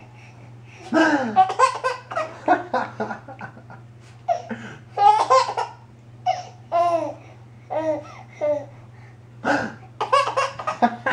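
A baby laughing in short repeated bursts together with a man's laughter, over a steady low hum.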